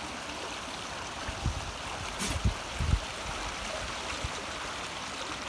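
Swollen floodwater stream rushing past in a steady flow after a night of heavy rain. A few soft low thumps come through around the middle.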